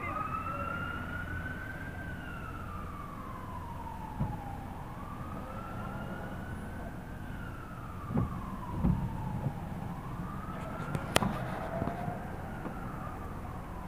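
Emergency vehicle siren wailing, slowly rising and falling in pitch over a steady low rumble. A few dull knocks sound partway through, and a sharp click comes about eleven seconds in.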